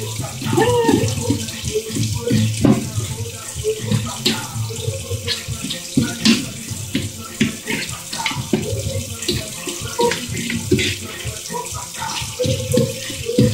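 Avocados being mashed by hand for guacamole: irregular wet squishing, with frequent clicks and knocks of the utensil against the bowl.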